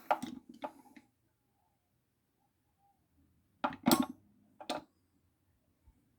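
Screwdrivers clinking against one another as they are handled: a few light clinks at the start and a brief clatter about four seconds in, with quiet between.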